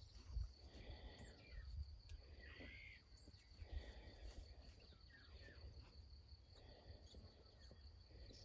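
Faint, near-quiet outdoor ambience: a steady high-pitched insect trill, with a few short falling chirps and soft swishing sounds about every second and a half.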